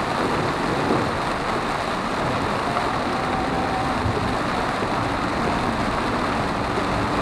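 Steady road noise inside a moving car on a wet highway in heavy rain: an even hiss of tyres on the wet road and rain on the car over the hum of the engine.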